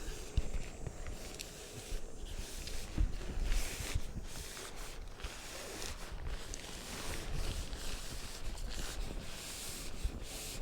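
Tent poles and nylon tent fabric being handled: irregular rustling and scraping, with a few soft knocks.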